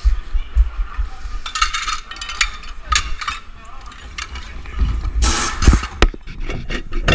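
Race-car pit-garage work noise: clatter, knocks and rustling, over a low rumbling handling noise on a body-worn microphone. About five seconds in there are two loud, noisy bursts in quick succession.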